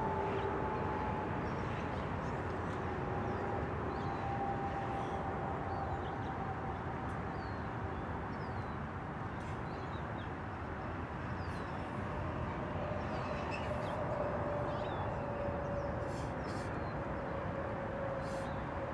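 Steady outdoor background noise with a distant drone that slowly falls in pitch, and scattered faint high chirps.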